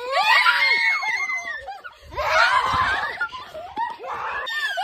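Young children squealing and shrieking with laughter in play, in two main bursts with more squeals near the end.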